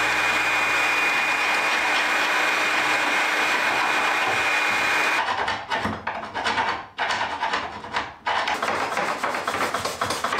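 Electric heat gun blowing steadily with a thin high whine while it softens old paint on a wooden door; it stops suddenly about five seconds in. Then a hand scraper rubs and scrapes at the painted door in uneven strokes.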